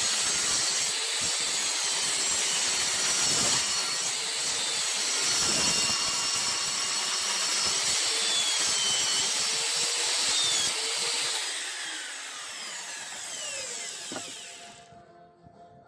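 Electric compound miter saw cutting through a pallet-wood board with a loud, steady whine. About eleven seconds in the level drops and the pitch falls as the released blade spins down, stopping near the end.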